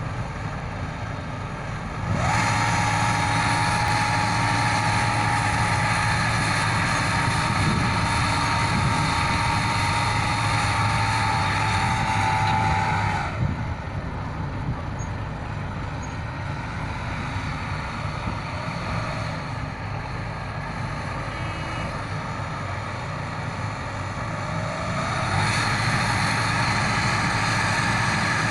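Diesel engine of a Hitachi 80-ton piling rig running. It revs up about two seconds in with a steady whine over it, drops back to a lower idle about halfway through, and revs up again near the end.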